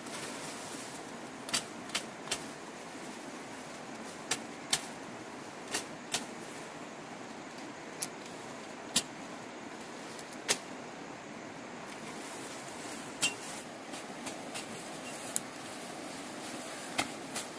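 Green shoots being picked in dense undergrowth: over a dozen sharp snaps of stems being broken and cut, at irregular intervals, over a steady rustle of leaves.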